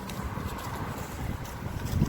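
Wind buffeting the microphone, a steady low rumble, with a few faint ticks over it.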